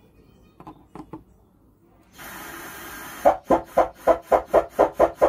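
Faulty 12-volt amplifier sounding through its speaker: a few faint clicks, then a hiss comes up about two seconds in, and from about three seconds in a rapid rasping pulse about four times a second. This is the unclear, distorted output being traced while its bias voltage is adjusted.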